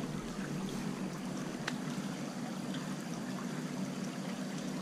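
Shallow creek water flowing over rocks and bedrock, a steady rush with a low steady hum underneath and one faint click about two seconds in.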